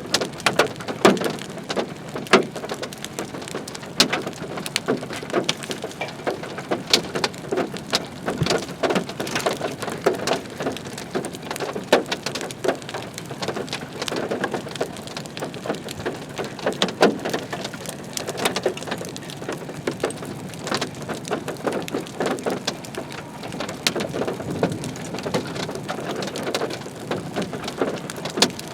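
Heavy rain falling, with many irregular sharp drop impacts close by over a steady hiss.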